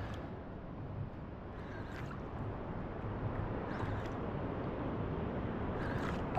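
Wind rumbling on the microphone and water sloshing against a fishing kayak's hull, with three brief knocks about two seconds apart.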